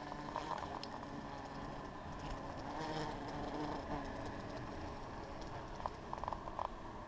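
Bumblebee buzzing faintly in spells as it moves about on a window frame, with a few light clicks near the end.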